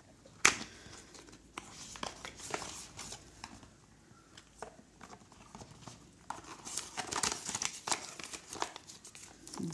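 Paperboard retail box being opened and handled by hand. A sharp tap about half a second in, then scattered clicks and scrapes of card, and a denser stretch of paper rustling a little after six seconds as the inner box and paper insert are pulled out.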